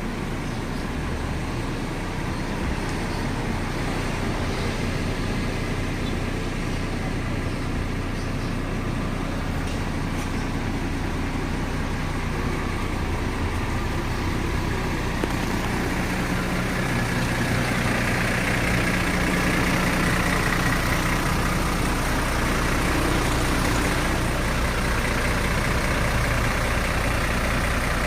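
Large bus engine running steadily amid road traffic noise, getting louder about sixteen seconds in.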